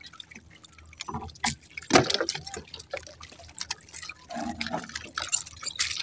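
Water dripping and splashing beside a small outrigger fishing boat, with scattered small splashes and knocks as handlines are hauled in and small fish taken off the hooks.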